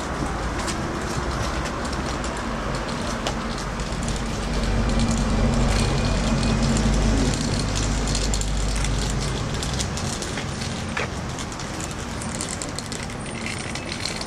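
A heavy vehicle engine rumbling at a low pitch, swelling about four seconds in and easing off after about nine seconds, over street noise with scattered small clicks.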